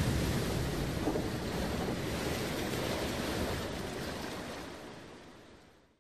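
Sound-effect tail of an animated logo intro: a rushing hiss, like surf or wind, that slowly fades away and is gone shortly before the end.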